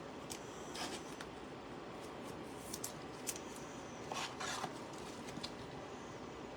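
Trading cards being handled and sorted: a few short scratchy slides and light clicks as cards rub against each other and are set down.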